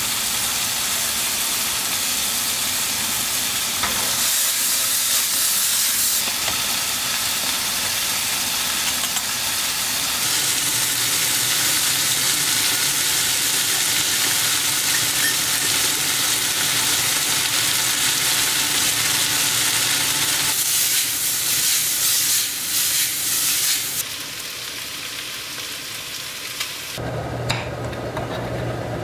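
Boiling water at first, then food sizzling as it fries in a pan on a gas hob: shrimp and mushrooms frying in oil with a steady, high hiss. Near the end the sizzle falls away and a low steady hum comes in.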